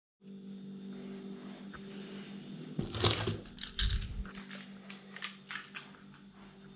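Handling noise of a hand-held action camera being picked up and carried: irregular knocks, clicks and rustles starting about three seconds in, the loudest around three and four seconds, over a steady low hum.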